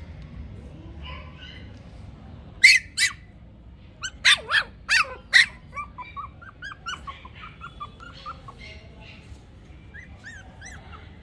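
Toy Pomeranian puppies yapping: two sharp, high-pitched yaps, then four more in quick succession, followed by a quicker run of fainter, short high-pitched calls.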